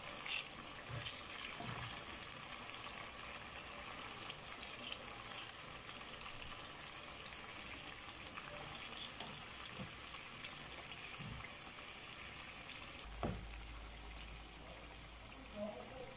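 Fish pieces and masala sizzling in an oiled wok, a steady hiss, with occasional light knocks of a spoon against the pan as the pieces are turned over. A sharper click comes near the end.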